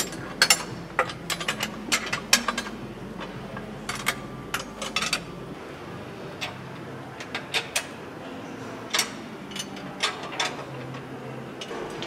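Irregular metallic clicks and clanks of bolts, nuts and tools being worked on a steel truck chassis frame during assembly, over a low steady workshop hum.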